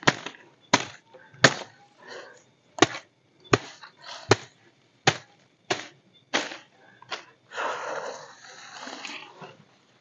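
A parang (machete) chopping into tough, woody shrub stems, about ten sharp chops a little over a second apart. Near the end, a leafy branch rustles as it is dragged away.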